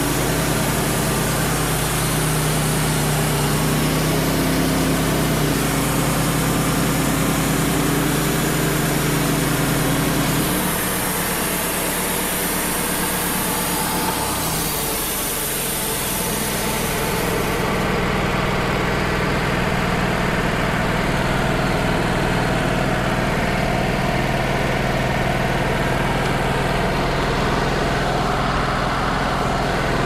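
Wood-Mizer LT35 band sawmill cutting along a red oak log: the engine runs under load with the hiss of the band blade in the wood, which stops a little past halfway as the blade clears the log while the engine keeps running. About ten seconds in, the engine note drops as the blade slows in the cut, a sign of the blade getting dull.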